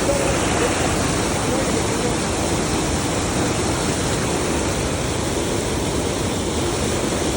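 Steady rush of water pouring through a dam.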